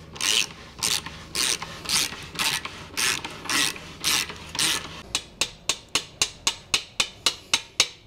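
A hand ratchet clicking as a bolt is tightened: long ratcheting back-strokes about twice a second at first, then from about five seconds in, quicker short clicks, around five a second.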